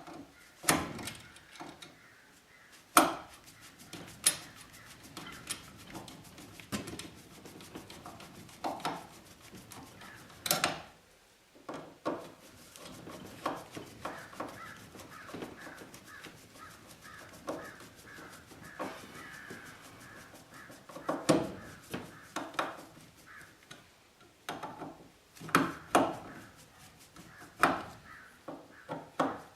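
Hand tools working a metal electrical box and its cable clamp connector: scattered clicks and sharp metallic knocks as the connector is tightened down on the Romex cable.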